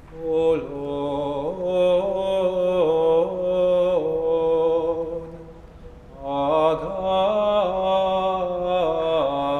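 Church singing at communion: a sung melody over a held lower note, in two phrases, with the second starting about six seconds in after a short pause.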